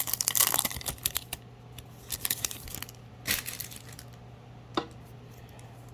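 Foil booster pack wrapper crinkling and tearing, with a dense run of crackles in the first second and a half, then a few single clicks and rustles of handling.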